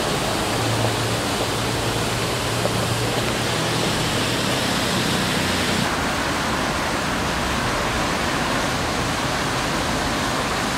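Steady, loud outdoor rushing noise with no distinct events, and a faint low hum in its first half.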